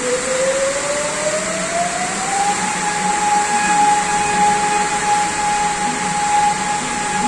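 A warning siren sounding over the steady rushing noise of a storm. Its single tone climbs in pitch over the first couple of seconds, then holds steady.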